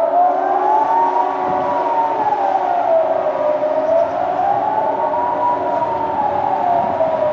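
Swiss civil defence sirens sounding the general alarm: a wailing tone that rises and falls smoothly, about one full cycle every four seconds.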